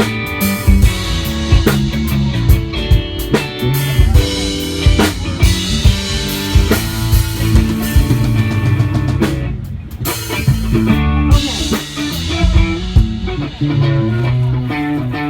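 Live rock band playing a song at a sound check: drum kit and guitars, with a short drop in the playing about ten seconds in before the band comes back in.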